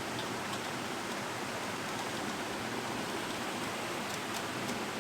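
Steady background hiss, with a few faint light clicks from a screwdriver tightening nuts.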